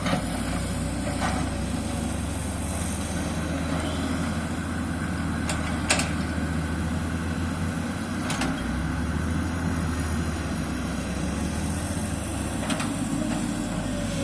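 Diesel engine of a Sany excavator running steadily, with a few short, sharp knocks, the loudest about six seconds in.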